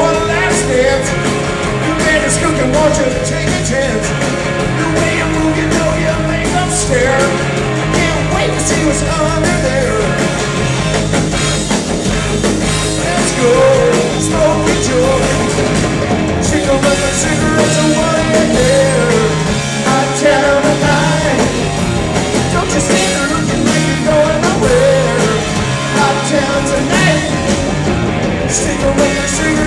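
Live rock band playing an instrumental passage: an electric lead guitar bending notes over electric bass and a drum kit, loud and continuous.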